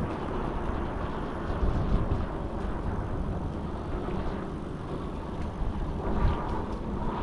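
Wind buffeting and rumbling on the microphone of a moving e-bike, an uneven steady noise heaviest in the lows.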